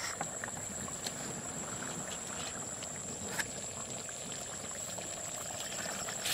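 Tamarind fish curry bubbling and simmering in an iron kadai over a wood fire as it is stirred with a metal ladle, a steady soft crackle with one light clink about three and a half seconds in. The curry is at the end of its cooking, nearly ready.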